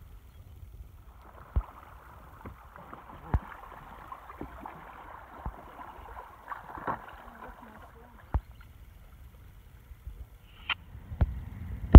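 Sea kayak paddling: paddle blades dipping and splashing in the water, with a sharp knock every second or two over a low rumble.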